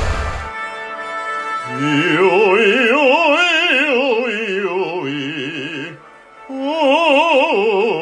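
Operatic singing with a wide vibrato over held accompaniment. The voice climbs and then falls in a long phrase, breaks off briefly about six seconds in, and comes back.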